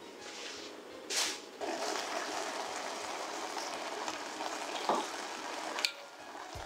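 Kimchi sizzling and bubbling in an uncovered saucepan as its remaining liquid is cooked off. A short burst of noise comes about a second in, and the sizzle starts just after it. Two sharp clicks sound near the end.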